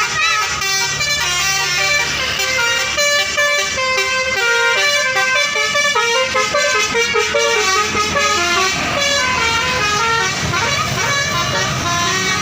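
A bus's basuri telolet horn plays a tune of short notes that step up and down in pitch, over the bus engine running underneath. Some notes glide in pitch late in the tune.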